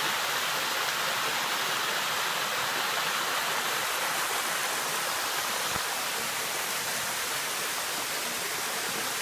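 Small waterfall spilling down a rock face into a shallow pool: a steady rush of falling water.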